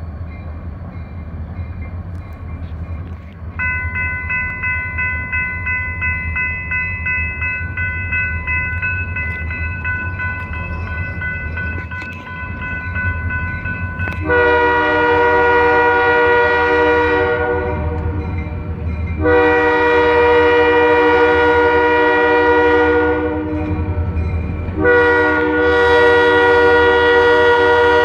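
Approaching EMD SD40-2 diesel locomotive, with a low engine rumble throughout. A few seconds in, a grade-crossing bell starts ringing steadily. About halfway through, the locomotive's air horn sounds for the crossing in three long blasts, the last running on to the end.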